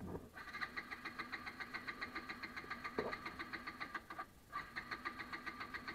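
Bajaj Pulsar NS200's electric starter cranking its single-cylinder engine with an even, rapid pulsing of about five beats a second. It cranks for about four seconds, pauses briefly, then cranks again without the engine catching: the bike's hard-starting problem after a full tank of petrol.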